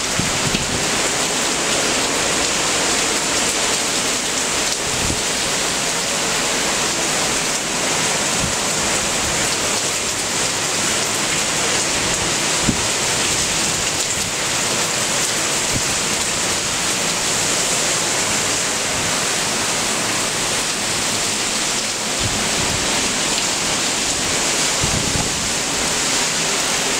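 Heavy hurricane rain pouring steadily, a dense even hiss, with a few brief low thumps.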